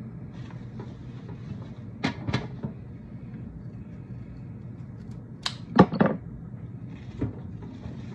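Scissors snipping through rose stems: a few sharp snips and knocks, with the loudest pair about six seconds in.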